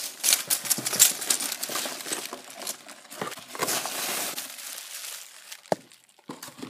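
Plastic zip bags of Lego parts and bubble wrap rustling and crinkling as they are handled and pulled out of a cardboard box, with many small sharp clicks. The handling thins out to a few scattered clicks and rustles over the last couple of seconds.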